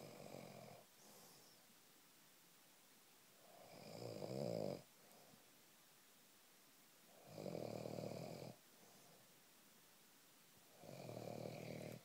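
Slow, regular snoring: four long snores about three and a half seconds apart, each lasting about a second, the second one rattly.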